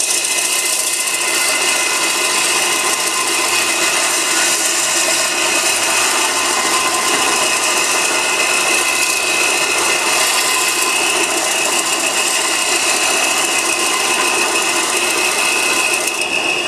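4x36 belt sander running steadily with a high whine, a bowl gouge held against its 120-grit belt being ground to sharpen it.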